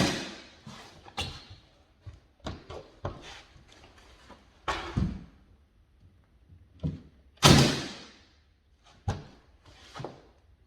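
Nail gun firing a series of sharp shots at uneven intervals, driving 2.5-inch nails through a glued stair nosing piece to pull it tight; the loudest shot comes about two-thirds of the way through.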